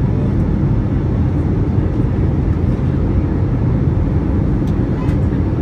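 Steady cabin noise inside an Airbus A321 in flight: a continuous low rumble of the engines and air rushing over the fuselage.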